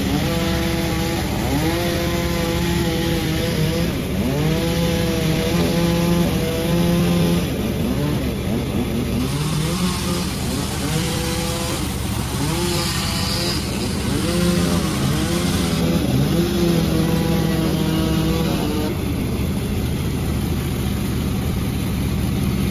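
Panda36 chainsaw engine revved up and down over and over, its pitch rising and falling every second or so, then settling to a steadier, lower drone near the end.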